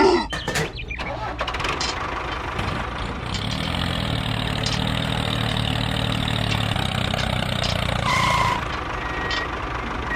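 An engine starting and then idling steadily, after a short loud noise at the very start, with a short beep near the end.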